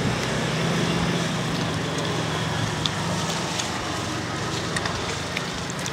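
Steady road traffic noise with a low engine hum, and a few light clicks in the middle.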